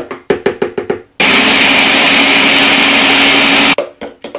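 Countertop blender running at full power for about two and a half seconds, grinding soaked beans and water into batter; it starts abruptly about a second in and cuts off sharply near the end. Before it starts, a metal spoon knocks several times in quick succession against the plastic blender jar.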